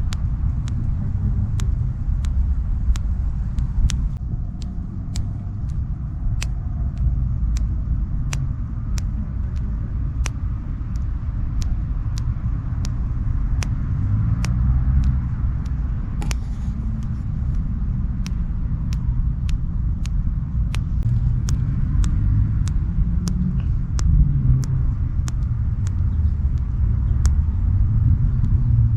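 Steady low rumble with sharp clicks at an even pace of about one and a half per second.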